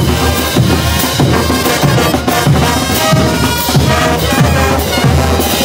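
Bolivian marching brass band playing: sousaphones, trumpets and trombones over bass drum, snare drums and clashed hand cymbals, keeping a steady beat of about two strokes a second.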